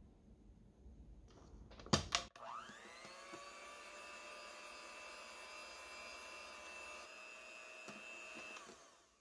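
Electric hand mixer whipping fresh cream in a glass bowl. Two sharp clicks come about two seconds in, then the motor whine rises and settles into a steady run, and it stops shortly before the end. This is the second whipping, which brings the cream to a firmer piping consistency.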